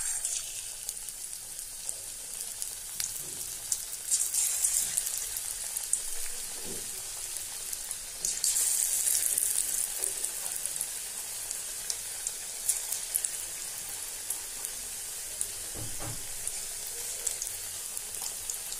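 Pakora batter of gram flour, potato and onion deep-frying in hot oil in an iron kadhai: a steady high sizzle with fine crackling. It swells louder about four seconds in and again around eight seconds in.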